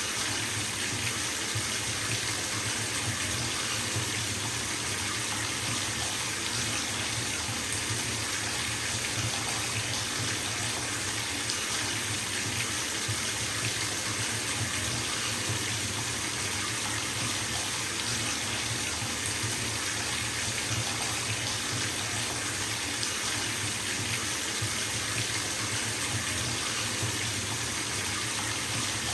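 Bathtub filling from a running tap: a steady, even rush of water pouring into the tub.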